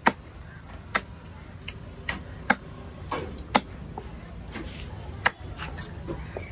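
Long, heavy fish knife chopping fish into pieces on a wooden log chopping block: a loud, sharp chop roughly every second, with lighter cuts between.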